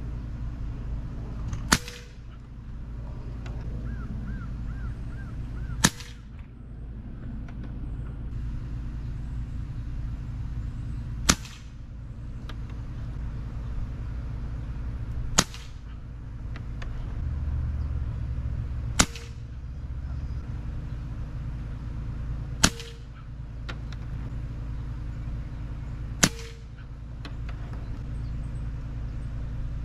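AEA Challenger .357 bullpup PCP air rifle, unregulated, firing seven single shots a few seconds apart.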